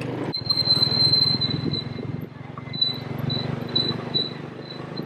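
A quad bike's small engine running as the ATV rolls along a dirt road, a low, evenly ticking rumble. Over it a thin high whine starts just after the beginning, held steady at first and then pulsing about twice a second.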